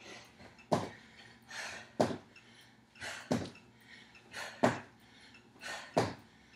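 Sneakers landing on a gym floor during squat jumps: five sharp thuds about one every 1.3 seconds, with a hard exhaled breath between landings.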